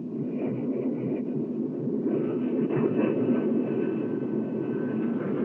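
Jet aircraft engine running on the flight line: a steady rumble with a thin high whine above it that rises slightly near the end.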